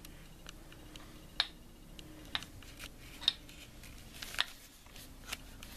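A handful of light, scattered clicks and taps, spaced about a second apart: small metal engine parts, such as pistons and piston rings, being handled on a workbench.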